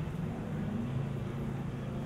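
Motor vehicle engine running close by, a low steady hum that shifts slightly in pitch, over street background noise.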